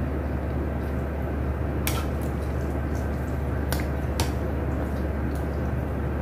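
Eating noodles with chopsticks from a bowl: wet chewing sounds and a few sharp clicks of the chopsticks against the bowl, about two, nearly four and four and a quarter seconds in, over a steady low hum.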